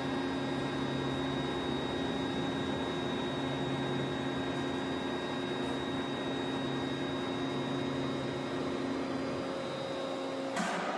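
A machine running with a steady, even hum, with a short hissing burst near the end.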